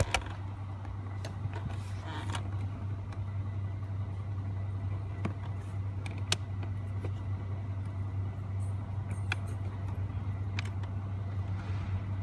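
Scattered small clicks and knocks of hands and a tool working a screw and plastic trim in a car dashboard, over a steady low hum.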